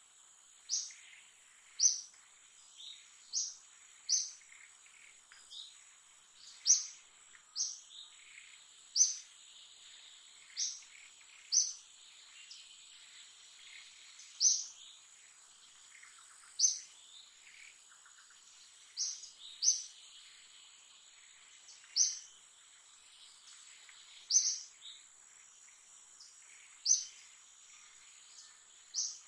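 A bird gives a short, sharp, high call over and over at irregular gaps of one to three seconds, over a steady high insect buzz.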